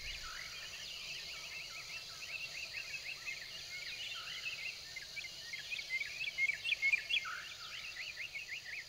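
Forest ambience: many small birds chirping in quick, overlapping calls over a steady insect hiss, a little busier and louder about six to seven seconds in.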